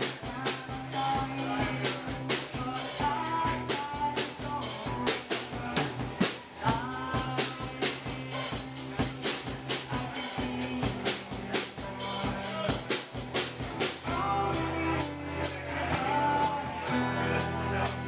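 Rock band playing live: a drum kit keeps a steady beat under guitars. The band gets fuller and louder about fourteen seconds in.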